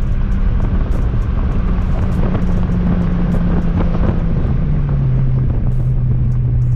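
Turbocharged car engine droning steadily under way, heard from inside the cabin. Its pitch drops about two-thirds of the way through and then holds steady at the lower note.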